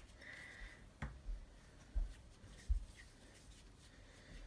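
Faint hand-handling sounds on a floured wooden cutting board: a few soft knocks as pieces of soft potato gnocchi dough are picked up and set aside.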